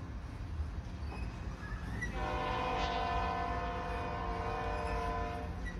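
Union Pacific freight locomotive's air horn sounding one long blast of several notes at once, starting about two seconds in and stopping just before the end, over the low rumble of the passing train.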